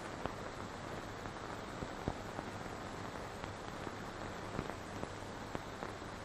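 Steady hiss and a low hum from an old film soundtrack, with scattered clicks and crackles at irregular moments.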